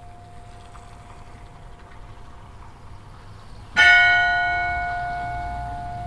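Hrísey church bell struck once about two-thirds of the way in, a loud clang whose ringing fades slowly; before the stroke, the hum of the previous stroke still lingers.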